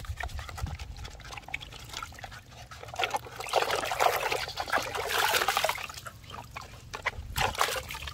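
Water splashing and trickling in irregular bursts, loudest in the middle.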